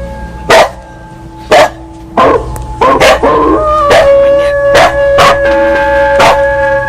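A metal temple bell struck about eight times at uneven intervals, each strike ringing on over the next. A dog howls along with it around the middle.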